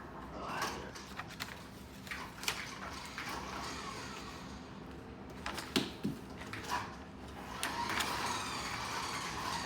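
Faint, scattered clicks and knocks of plastic marble run pieces being handled and fitted together, with a soft rustle near the end.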